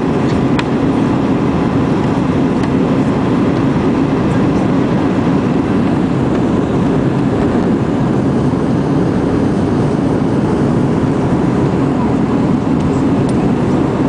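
Steady jet-engine and airflow roar heard inside an airliner cabin in flight, an even rushing noise with a faint steady tone above it.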